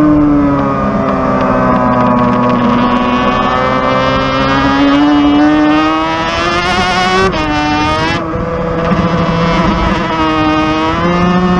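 Suter MMX 500's V4 two-stroke racing engine heard from on board at speed, its note repeatedly sagging and climbing as the rider works the throttle and gears through corners, with an abrupt change in pitch about seven seconds in.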